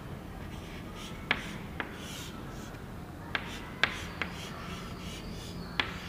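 Chalk drawing on a chalkboard: faint scratchy strokes broken by several sharp taps as the chalk meets the board.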